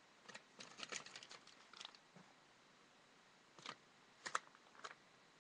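Faint crinkles and clicks from a hamster-treat packet being handled: a quick run of small clicks in the first two seconds, then three single clicks.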